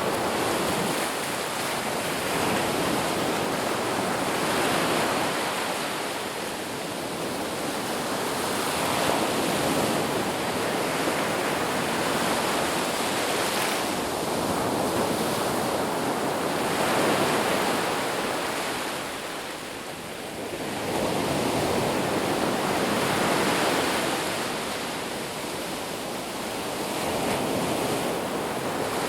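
Sea waves breaking in surf, the rushing noise swelling and easing every few seconds, at its lowest about two-thirds of the way through.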